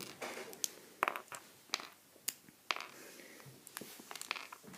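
Plastic Lego bricks being pulled apart and handled: a string of separate sharp clicks and light clatters.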